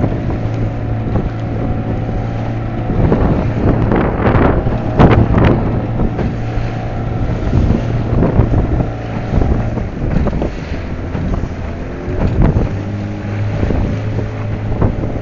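Small aluminium boat's outboard motor running steadily while the hull slaps and splashes through choppy waves, with wind buffeting the microphone. Several louder splashing surges break over the engine hum.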